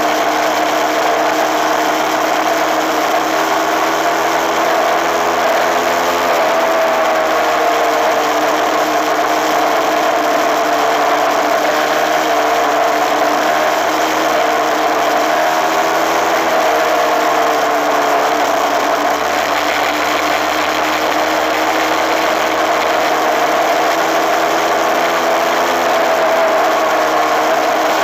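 Suzuki RMX250S single-cylinder two-stroke engine running at steady cruising revs while the bike rides along, heard from the handlebar with wind and road rush. The engine note dips and rises slightly a couple of times, around six seconds in and again past the middle.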